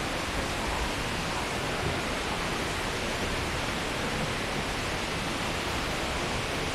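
Rushing water, a steady, even rush with no breaks or changes.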